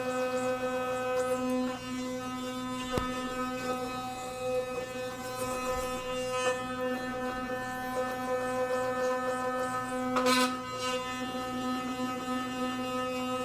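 Electric toothbrush buzzing steadily while brushing teeth, a constant high-pitched hum. There is a short click about three seconds in and a brief louder scrape of the bristles about ten seconds in.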